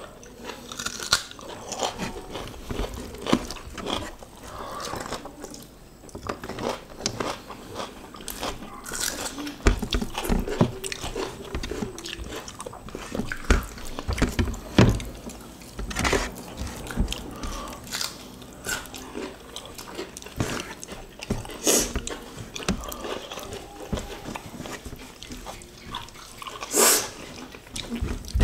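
Two people chewing and smacking their lips as they eat rice with sambal quail eggs by hand: a steady run of short wet mouth clicks and smacks, with one louder smack near the end.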